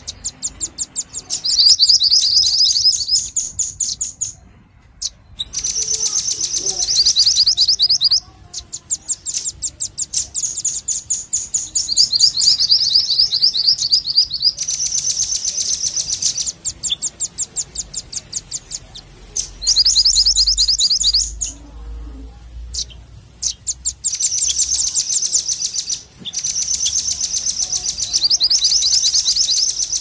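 Bird-lure recording of minivet and velvet-fronted nuthatch calls: high, very rapid trills of repeated chirps in runs of a few seconds, with brief pauses between them and two longer lulls.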